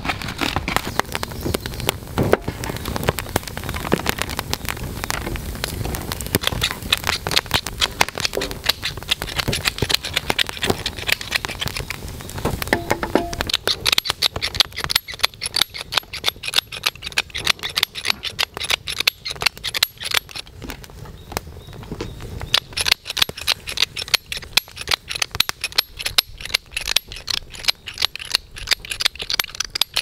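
A one-handed salt and pepper mill grinding seasoning onto a raw steak gives rapid dry clicking in repeated runs through the second half. Before that come irregular crackles and handling noises.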